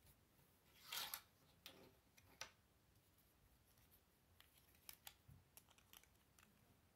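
Faint handling of plastic Lego bricks: a short scrape about a second in, then a few small clicks as pieces are turned and pressed together.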